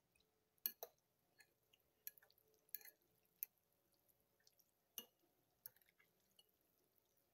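Metal fork stirring through soft ramen noodles with chicken and vegetables on a ceramic plate: faint, scattered clinks of the fork on the plate and soft wet squishes, the sharpest clinks under a second in, midway and about five seconds in.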